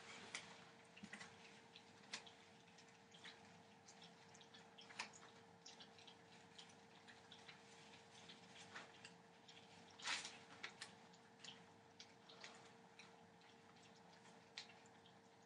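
Near silence: room tone with a faint steady hum and scattered, irregular soft clicks and taps, one slightly louder about ten seconds in.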